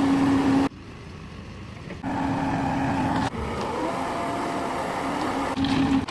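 Heavy vehicle engine running, heard in several short clips cut abruptly one after another. Some of the clips carry a steady low hum.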